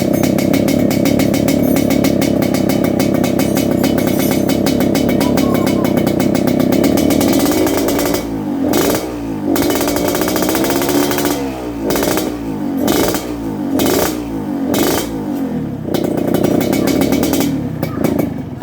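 Yamaha RX-King two-stroke motorcycle engine with a 'ngorok' (snoring) exhaust tune, running steadily at a raised idle. About halfway through it is blipped on the throttle again and again, the pitch rising and falling with each rev.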